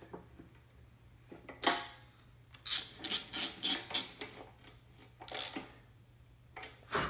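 Hand socket ratchet on an extension clicking in short runs, most of them in a quick burst about three seconds in, as oil pan bolts are brought up snug.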